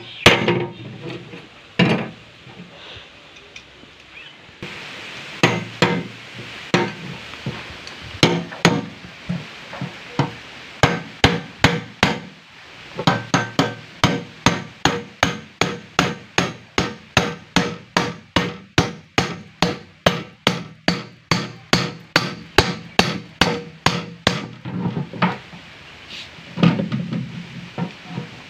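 Hammer striking the back of a machete blade set in the lid of a rusty sheet-metal tin, chiselling a cut through the tin. Sharp metallic blows, each with a short ring, scattered at first and then a steady run of about two to three a second.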